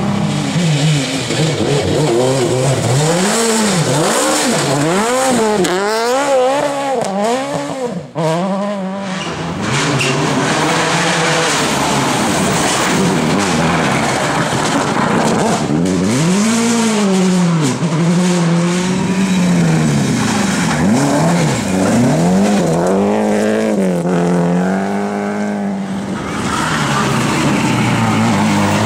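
Rally car engines revving hard on a stage. The pitch climbs steeply and drops back again and again with each gearshift and lift-off, as several cars go through in turn. The sound dips briefly about eight seconds in.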